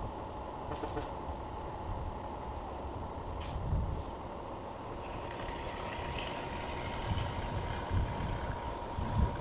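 Steady engine noise: a low rumble under a constant high hum, with a hiss that builds from about halfway.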